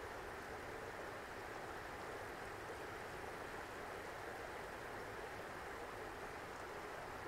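Steady rushing of running water from a spring meltwater stream, an even hiss with no changes.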